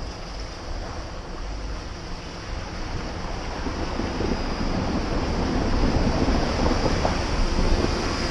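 Jeep driving through a flooded, muddy trail: the engine runs under a steady rush of water splashing, with wind on the microphone. It gets louder from about four seconds in as the Jeep pushes into a deep puddle.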